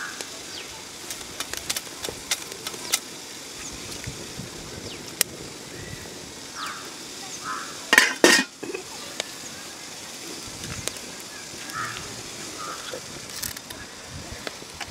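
Open wood fire crackling under a cooking pot, with scattered sharp pops, and a short louder clatter of cookware about eight seconds in.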